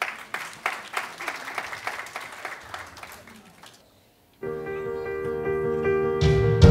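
Audience applauding, dying away over about three and a half seconds. After a brief silence, slow piano music begins, and a deep bass note comes in near the end.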